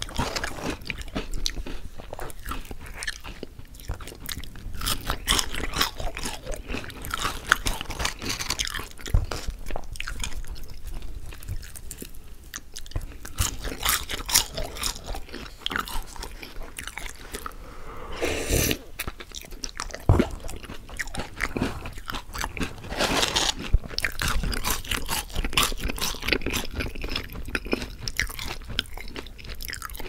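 Close-miked eating sounds: crunchy bites and chewing of crispy fried food, a continual irregular crackle of crunches throughout.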